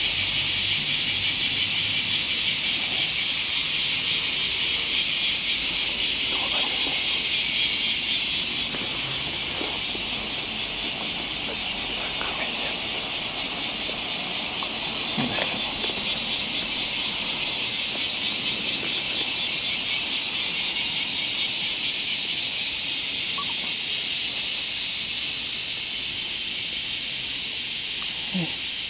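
Steady, high-pitched chorus of insects, an even shrill with a rapid fine pulse, with a few faint rustles and clicks of handling now and then.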